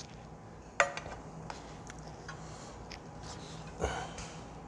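Stainless steel serving pan and a small metal sauce cup clinking: a ringing clink about a second in, a second one near the end as the pan is set down on the table, and a few light ticks of metal between.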